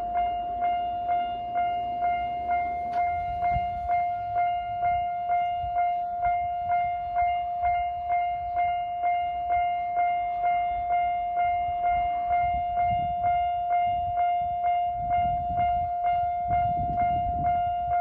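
Homemade Japanese railway crossing signal's alarm ringing in an even, repeating pattern of about two and a half strikes a second, one steady high tone. A low rumble grows under it over the last few seconds.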